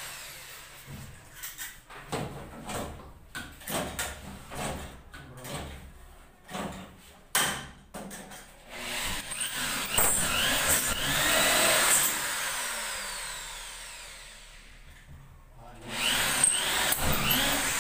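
Corded electric drill driving screws into ceiling boards overhead: short runs and knocks at first, then a longer spell of the drill running with a whine that rises and falls.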